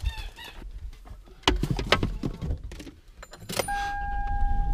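Knocks, clicks and a jangle of keys as someone settles into a car, with a heavy thud about a second and a half in. Near the end a steady electronic warning tone from the car starts up and holds.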